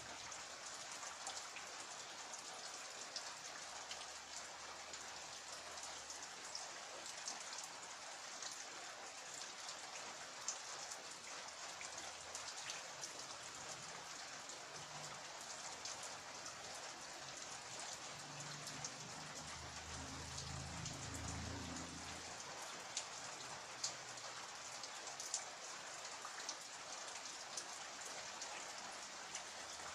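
Steady rain falling, with scattered sharper drop ticks landing on nearby surfaces. A faint low rumble rises under it for a few seconds past the middle.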